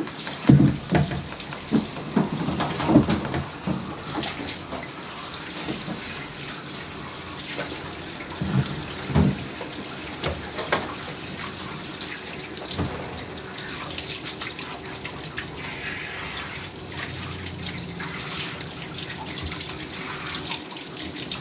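Water spraying steadily from a hand-held bath sprayer onto a dog's coat in a grooming tub, with a few knocks in the first three seconds and two more about nine seconds in.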